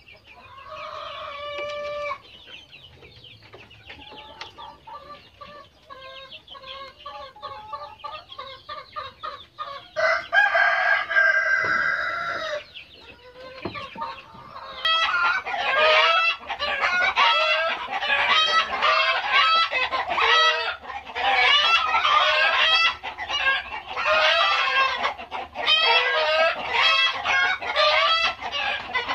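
Free-range village chickens (ayam kampung): a rooster crows once about ten seconds in. From about halfway, many birds call and cluck together without a break.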